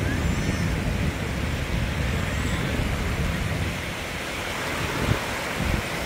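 Small waves breaking and washing over the sand at the shoreline, a steady hiss of surf with a low rumble of wind on the microphone. There is one brief knock about five seconds in.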